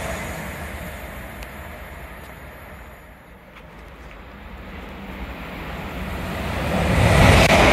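Great Western Railway Class 800-series Intercity Express Train running through at speed, its rumble fading as it draws away. From about halfway, a second train's rumble approaches and grows loud near the end.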